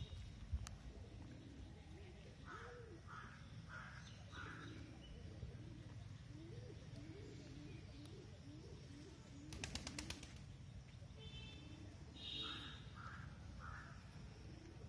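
Birds calling faintly: a run of low, cooing notes, and short higher calls that come in groups of four, twice. There is a brief burst of rapid clicks about ten seconds in, over a steady low background hush.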